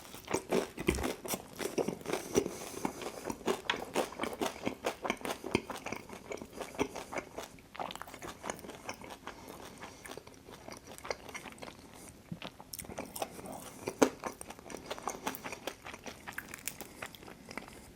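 Close-miked eating of Detroit-style pizza: crunching bites and steady chewing as a string of small clicks and crackles, with one sharper crunch about 14 seconds in.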